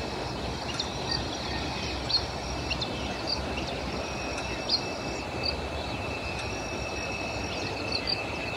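Outdoor field ambience from a handheld phone: steady wind noise on the microphone, a steady high buzz, and short high chirps every half-second or so.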